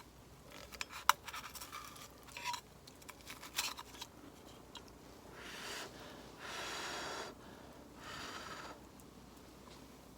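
Small handling noises, a string of clicks and scrapes, then three short bursts of hiss about a second apart.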